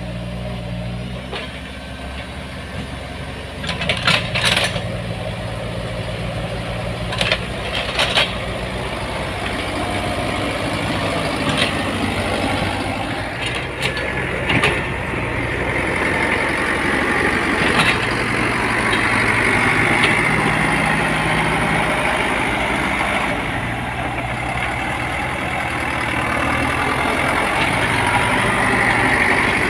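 Heavy diesel road-construction machine running steadily, with several sharp metallic clanks in the first half and a high whine that comes in about halfway through.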